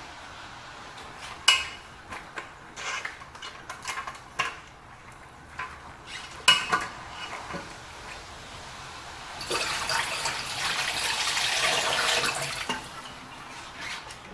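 Hand-washing dishes: plates and cutlery clinking against each other in a sink, with two sharper clinks, one about a second and a half in and another about five seconds later. Near the end a tap runs for about three seconds and is turned off.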